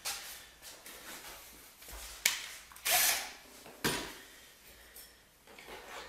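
Tool-handling clatter: a few separate sharp knocks and scrapes as a cordless drill is set down on the floor and a plastic hole-saw case is handled, the loudest about three seconds in.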